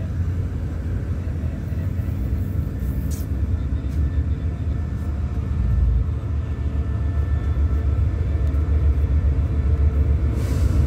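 Diesel locomotive approaching, its low engine rumble growing steadily louder as it nears.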